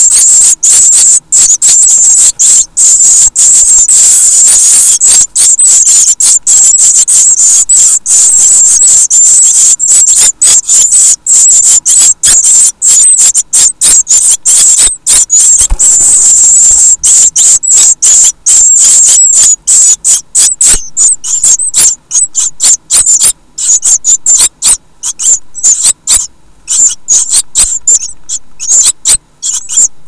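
Great tit nestlings begging for food: a loud, high-pitched, rapid chatter that runs almost without a break, then breaks up into separate short bursts over the last ten seconds as the brood settles.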